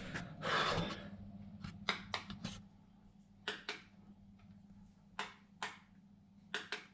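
Quinetic wireless light switches being pressed, giving a series of short sharp clicks, several in quick pairs. A brief rustle comes about half a second in.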